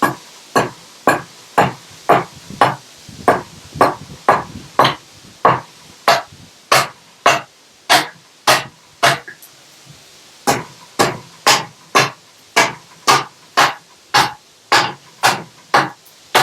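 Broad axe hewing a wooden log, sharp chopping strokes at a steady pace of about two a second, with a short break just after the middle. The axe is shaving the log's face down to get rid of dry rot.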